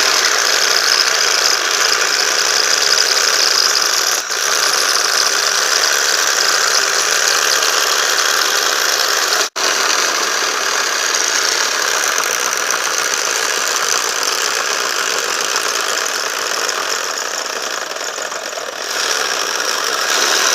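Homemade jigsaw running: a 775 DC motor driving a reciprocating hacksaw blade, a loud steady buzzing rattle with a brief break about nine and a half seconds in.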